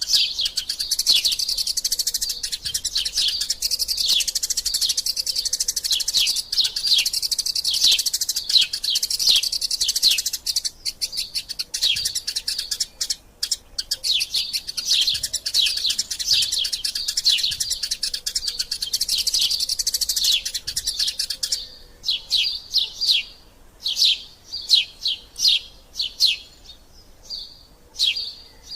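Eurasian tree sparrows chirping in a fast, dense chatter, the excited calling of sparrows squabbling. About 21 seconds in the dense chatter stops, leaving separate repeated chirps.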